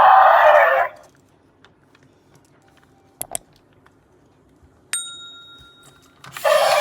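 A loud hissing rustle that stops about a second in, two quick clicks, then a single bell-like ding about five seconds in that rings out over a second; another hissing rustle starts near the end.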